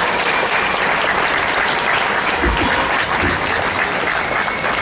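Crowd applauding steadily, with a couple of low thumps about halfway through.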